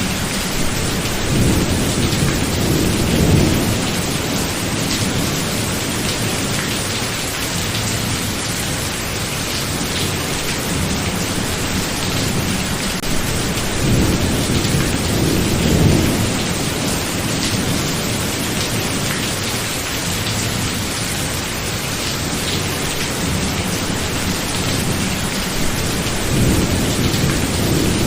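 Thunderstorm: steady heavy rain, with low rolls of thunder swelling and fading three times, about every twelve to thirteen seconds.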